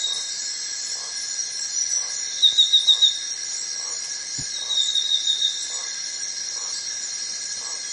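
Forest insect chorus: a steady high buzzing trill, with a louder pulsed trill repeating about every two seconds.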